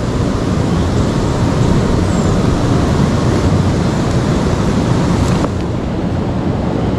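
Steady rushing of river water mixed with wind rumbling on the microphone, easing slightly about five and a half seconds in.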